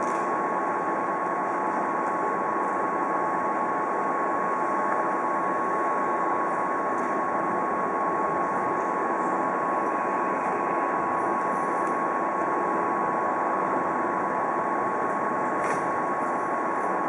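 A DR Class 243 (DB 143) electric locomotive standing at the platform with its electrical equipment running, a steady hum with a high, even whine on top.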